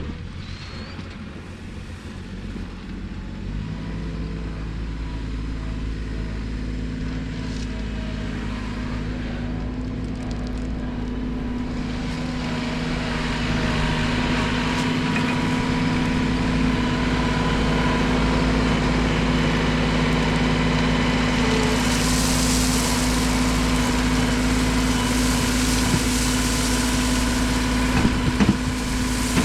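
LS compact tractor engine running steadily, with a hum that grows louder over the first dozen seconds and a hissing note added in the later part.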